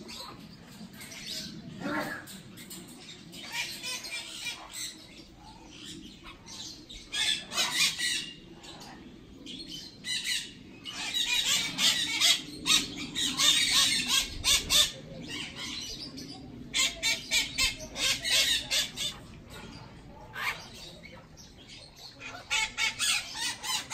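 Parrots squawking in several spells of rapid, repeated calls, the longest and loudest about halfway through.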